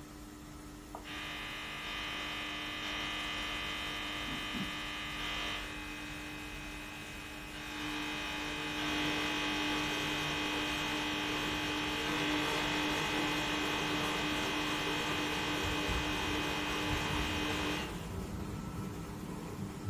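Glass-bulb mercury arc rectifiers, British Thomson-Houston units of 1939, buzzing as they conduct over a steady low hum. The buzz starts about a second in, grows louder about eight seconds in as the load on them rises, and cuts off shortly before the end.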